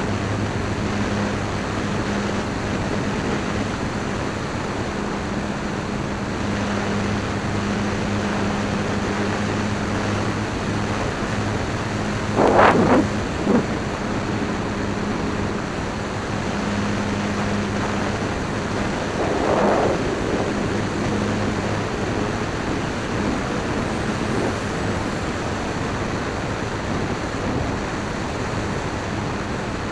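Electric motor and propeller of a Dynam Waco RC biplane in flight, a steady hum under a loud rush of wind over the plane's onboard camera. Two brief louder rushes come just under halfway and about two-thirds through.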